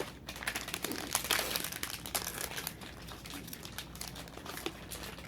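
Foil booster pack of Dice Masters crinkling as it is handled and opened, a dense crackle that is busiest in the first couple of seconds and then thins out.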